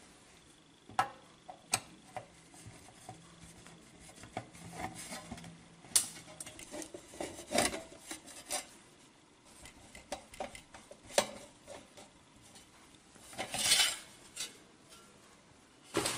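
Sheet-metal cover being unscrewed and taken off a bench power supply: scattered small metallic clicks and clinks from the screws and tools. About 13 seconds in there is a longer scraping rattle as the perforated steel cover is worked loose.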